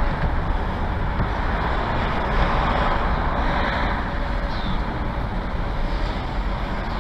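Pickup truck driving, heard from inside the cab: steady engine and road noise.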